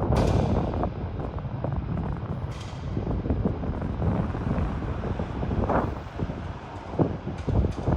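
Gusty storm wind buffeting the microphone: an uneven low rumble that rises and falls, with a few short knocks near the end.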